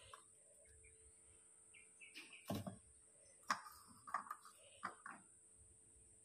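Faint, scattered light knocks and taps as eggplants and garlic cloves are handled in a metal air fryer basket, the clearest about two and a half and three and a half seconds in, with a few short bird-like chirps between them.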